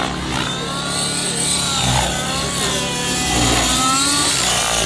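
Nitro-powered RC model helicopter's engine and rotor whining in flight, the pitch gliding up and down as it manoeuvres.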